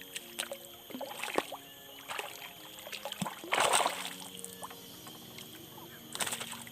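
Water splashing in separate strokes, one every second or so, the loudest about three and a half seconds in, over a steady high-pitched hum.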